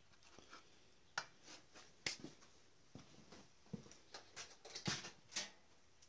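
Faint, scattered clicks and light taps of small parts being handled at a chainsaw's spark plug, about half a dozen separate knocks.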